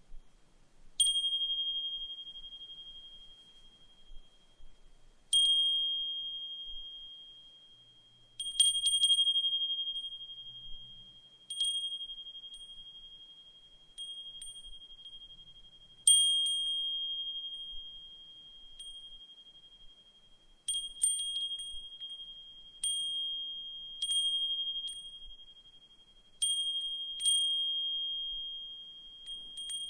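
Brass suzumushi furin (Japanese wind chime) struck by its clapper at irregular intervals, each strike a single high, bright ringing note that slowly fades over several seconds; now and then two or three strikes come close together.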